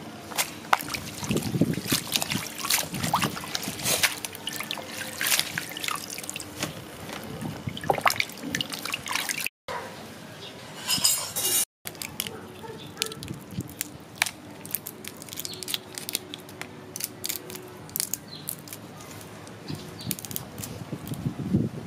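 Water splashing and dripping as tomatoes, a carrot and a red onion are rinsed by hand in a basin of water, with many short splashes. After a short break, quieter small clicks of raw prawn shells being pulled off by hand.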